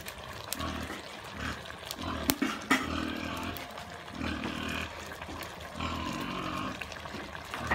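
Repeated short animal calls, each under a second long and pitched with several overtones, with two sharp clicks a little over two seconds in.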